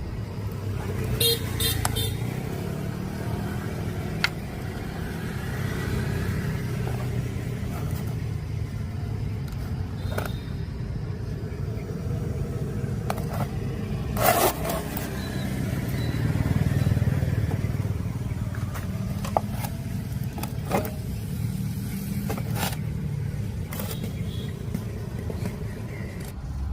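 A steady low rumble, with scattered sharp clicks and knocks; the loudest knock comes about fourteen seconds in.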